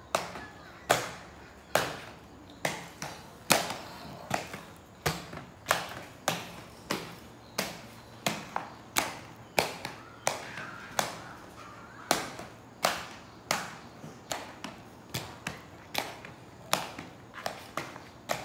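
Inline skates knocking down on concrete with each short step: sharp clacks, irregular, about one to two a second, some much louder than others.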